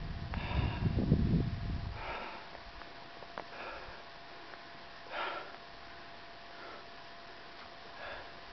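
Low rumble of wind on the microphone for about the first two seconds. After that comes a run of short, noisy breaths from the climber holding the camera, one every one to two seconds, at high altitude.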